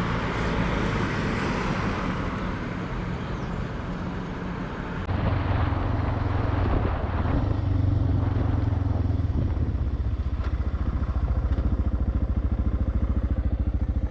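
Single-cylinder dual-sport motorcycle engine running. About five seconds in the sound changes abruptly and the low, evenly pulsing engine note becomes stronger and steadier.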